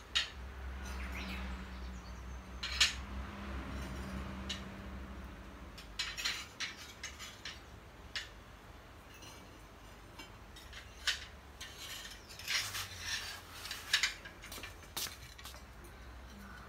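Fired ceramic ware clinking and knocking against other pieces and the kiln shelves as it is taken out of a kiln after the glaze firing, in scattered sharp clinks that come in small clusters.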